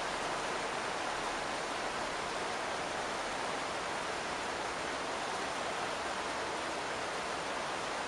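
Rain falling on a non-metal house roof, heard from inside the attic beneath it as a steady, even hiss.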